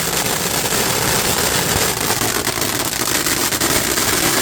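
A steady din of many fireworks and firecrackers going off at once, a dense crackle with no single loud bang standing out.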